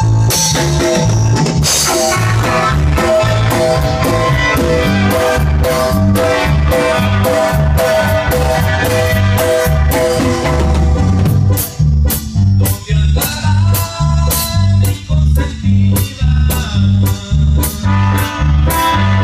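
Instrumental opening of a tierra caliente band song: a keyboard melody over a repeating bass line and drums. About two-thirds of the way through, sharp regular drum hits, about two a second, come to the front.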